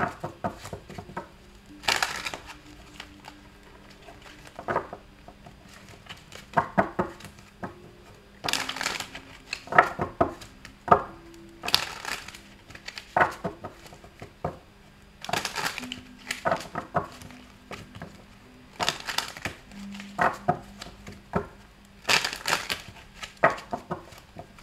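Tarot cards being shuffled by hand, in crackling bursts every few seconds. Soft background music with long held low notes plays underneath.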